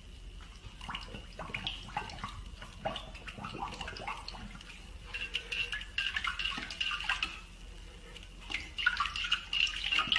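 A dog pawing and nosing at the water in its bowl: splashing and paw scrapes against the bowl, with louder bouts of splashing past the middle and near the end.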